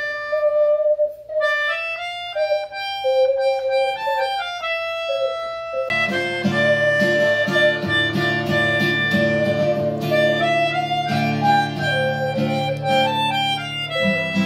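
Melodica and harmonica playing a reedy melody together. Acoustic guitar strumming joins about six seconds in.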